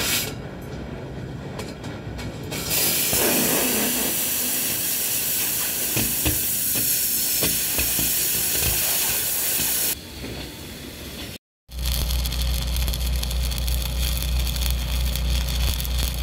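Stick (arc) welding on steel pipe: the arc makes a steady crackling hiss for several seconds. After a short break it resumes over a steady low hum.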